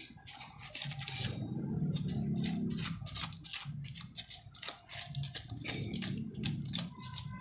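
Digging in hard, sandy soil to free an ube tuber: a quick, irregular run of crunching, scraping clicks as the dirt is broken up and pulled away.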